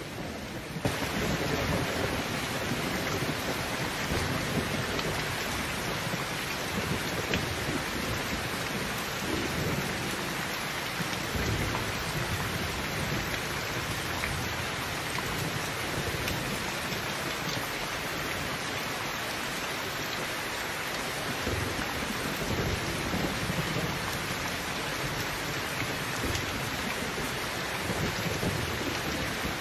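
Heavy rain pouring steadily, with a low rumble of thunder beneath it. The sound grows fuller about a second in.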